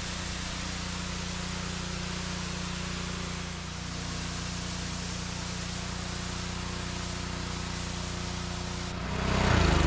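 Pressure washer running: a steady hiss of spray over a low, even motor hum. Near the end it gets louder and the hum shifts in pitch.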